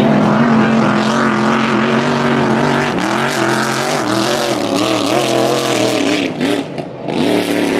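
Grand Prix racing hydroplane engine running flat out, a loud steady engine note whose pitch wavers up and down from about three seconds in as the boat skips across the water, dipping briefly near the end.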